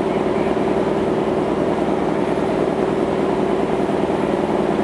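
Car ferry's diesel engines and onboard machinery running with a steady low drone while the ship lies at the berth.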